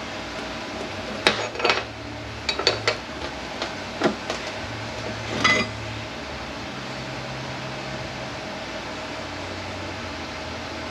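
Metal transmission parts and tools clinking and clanking as they are handled by hand: a scattered run of sharp knocks over the first half, then only a steady shop-fan hum.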